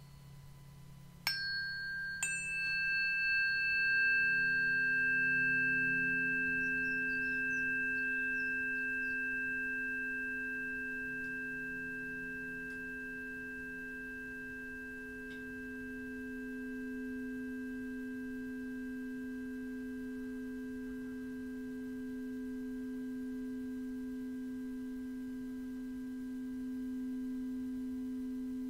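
Two metal sound-healing instruments struck about a second apart, each with a bright ping. Several pure, steady tones then ring on and sustain, the lowest swelling slightly later.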